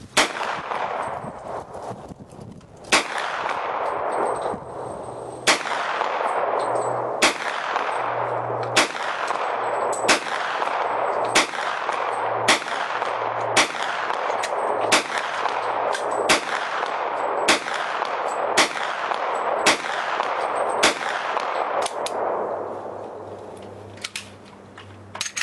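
KelTec Sub2000 carbine in .40 S&W firing about sixteen shots in steady succession, roughly one a second, each shot trailed by a long rolling echo. A few fainter clicks come near the end.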